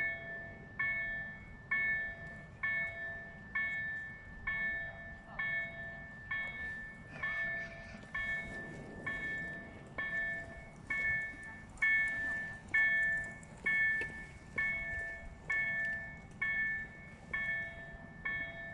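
Electronic railway warning bell dinging steadily, about once a second, with a low rumble underneath.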